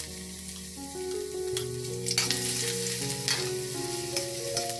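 Sliced ginger and shallots sizzling in hot oil in a wok. A spatula scrapes and taps against the pan several times.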